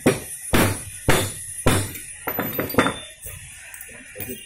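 Four heavy hammer blows about half a second apart on a steel driver tube set over the end of a motorcycle crankshaft, then a run of lighter metal clinks as tools and parts are handled.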